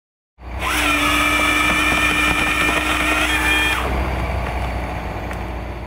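A power-tool-like motor spins up about half a second in and runs steadily with a high whine. Near four seconds in it cuts back and dies away.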